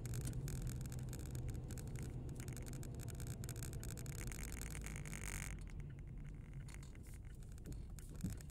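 Car driving, heard from inside the cabin: a steady low rumble of engine and tyres with a hiss and light rattling clicks. The hiss drops away about five and a half seconds in as the car eases off.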